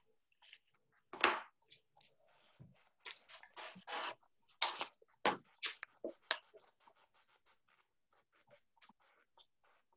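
Flat paintbrush scratching across a wooden tray in a series of short brush strokes, louder in the first half and then lighter and quicker, a few a second.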